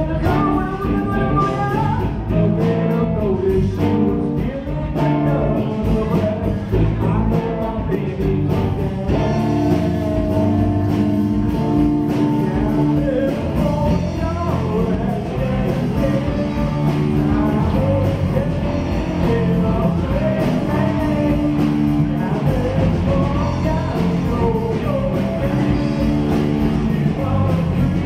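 Live rock band playing through a PA: amplified electric guitar, a drum kit keeping a steady beat, and a vocalist singing.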